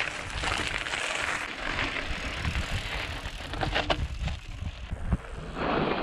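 Mountain bike riding over a rocky dirt trail: tyres crunching on gravel and grit, with small rattles and knocks from the bike. The sound changes abruptly about five seconds in.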